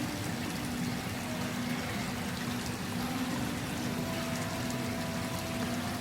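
Steady rush of running water circulating in a large indoor fish tank, with a faint low hum that comes and goes.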